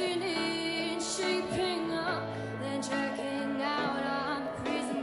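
Background music: a song with sung vocals over instruments, held notes and short sliding phrases throughout.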